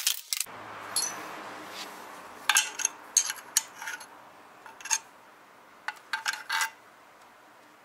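A ball-peen hammer strikes the aluminium engine crankcase in a few quick blows at the very start. Then a metal tool scrapes old gasket sealant off the aluminium case face in short scraping strokes, coming in small clusters about every half second to a second.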